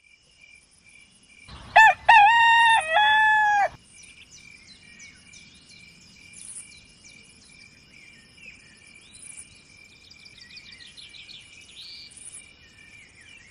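A rooster crowing once, about a second and a half in: one loud call of about two seconds, rising, held, then dropping. Afterwards small birds chirp faintly over a steady high hum.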